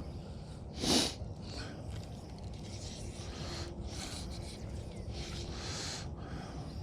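A person sniffing sharply once through the nose about a second in, over a steady low outdoor background.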